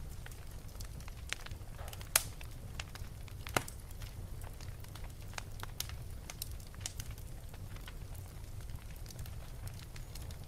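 Wood fire crackling in a fireplace: scattered sharp pops and snaps over a low steady rumble, with two louder pops about two seconds in and a second and a half later.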